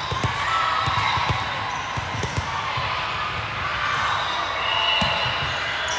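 Volleyballs thudding irregularly on a hardwood gym floor, with indistinct voices of players and spectators.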